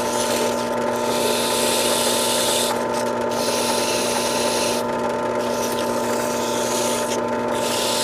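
Drill press running steadily with a small motor's armature spinning in its chuck, while emery paper is pressed against the corroded commutator. A scratchy hiss swells and drops about three times as the paper sands off heavy rust.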